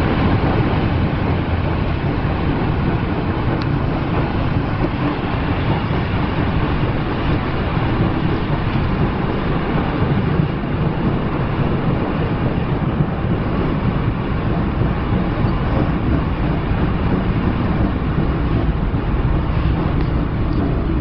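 Beovoz commuter train running, a loud, steady, deep rumble that holds level without a break.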